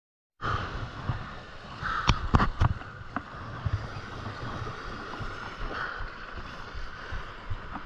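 Surf surging and washing against sea rocks with a low, uneven rumble, crossed by a few sharp clicks about two to three seconds in.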